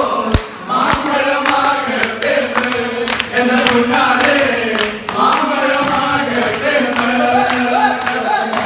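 A group of men singing together in chorus, one of them leading through a microphone, with rhythmic hand-clapping.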